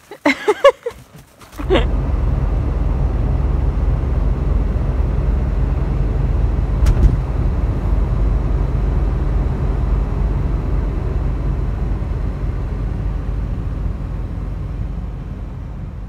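Steady low engine and road rumble heard from inside a moving 4x4's cab, fading out near the end, with a single sharp click about seven seconds in. It opens with a brief pitched, wavering vocal sound.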